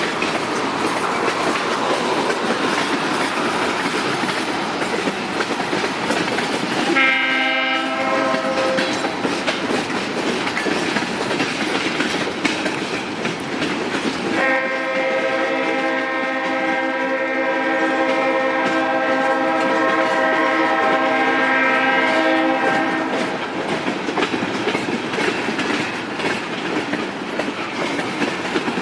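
Leslie RS5T five-chime train horn on a diesel locomotive, sounding a short blast about seven seconds in and then a long blast of about eight seconds, over the steady noise and clickety-clack of the passing freight train's wheels on the rails.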